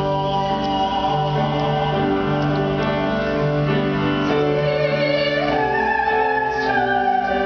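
Mixed choir singing a slow piece in long held chords. About five and a half seconds in, one voice part rises to a higher held note.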